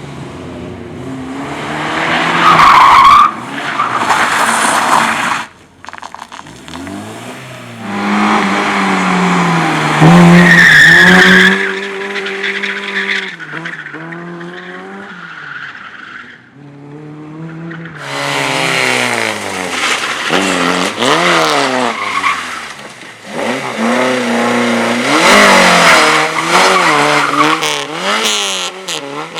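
Car drifting: its engine revs up and down again and again while the tyres squeal through the slides. The squeal is loudest about three seconds in and again around ten seconds, with short lulls between runs.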